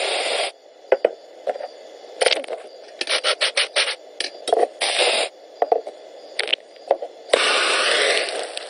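Film sound effects of a cup of hot cocoa being topped. An aerosol whipped-cream can sprays briefly at the start, then comes a quick run of scraping strokes as chocolate is grated. Near the end a blowtorch hisses for about a second and a half.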